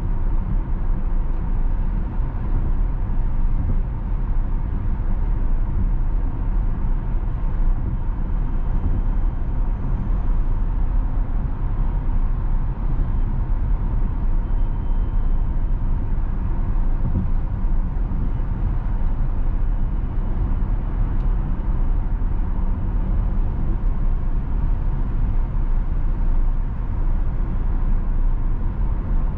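Steady low rumble of road and tyre noise from a 2022 Tesla Model S Plaid on the move, with no engine note.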